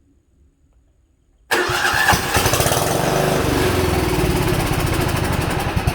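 Old Sears 10/6 lawn tractor engine being cranked over by its starter, beginning suddenly about a second and a half in and going on steadily and rhythmically; it is not catching because no fuel is reaching it, the owner says.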